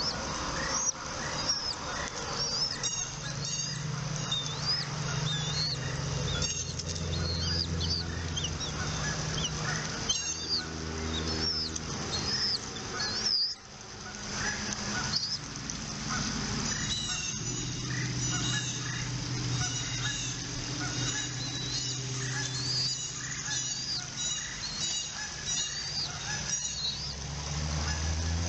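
Many short, high bird chirps and calls following one another, over a low steady hum that comes and goes.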